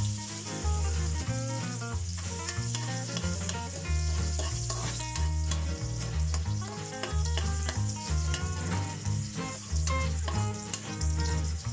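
Chopped aromatics sizzling in hot oil in a wok, stirred and scraped about with a spatula, over background music with a steady bass line.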